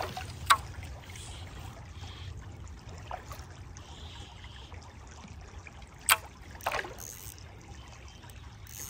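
River water trickling and running steadily, with three short, sharp sounds: one about half a second in and two close together near the seven-second mark.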